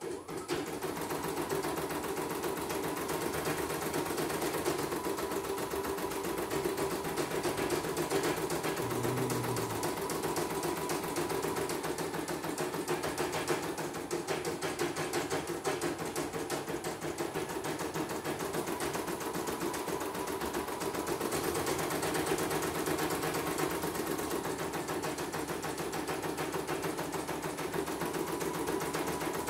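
CNY portable embroidery machine running steadily through a stitching test, with a fast, even stitching rhythm. It is on test for heavy rotation, and the technician finds the rotation somewhat heavy.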